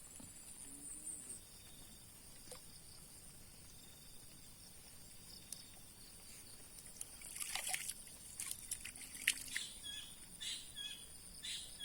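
Quiet waterside ambience with a steady high insect buzz. From about seven seconds in, a run of small splashes, drips and clicks of water being disturbed.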